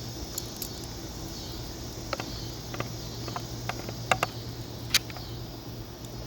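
Scattered small clicks and taps of screws and plastic washers being handled while a windshield's mounting hardware is unscrewed, the sharpest about four and five seconds in, over a steady low hum.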